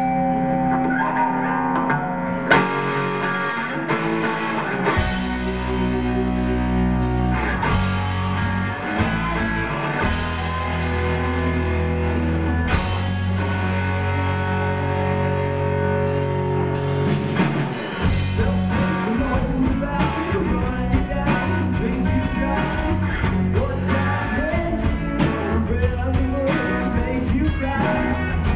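Live indie rock band playing a song on electric guitars, bass guitar and drum kit. The guitar opens alone, the drums come in a couple of seconds in, and the bass joins about five seconds in.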